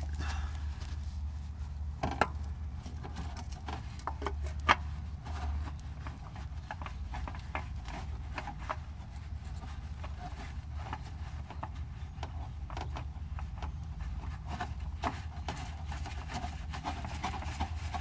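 K&N HP-2005 oil filter being fitted and spun onto the engine's filter mount by a gloved hand: scattered clicks and rubbing, with two sharper knocks around two and five seconds in. A steady low rumble runs underneath.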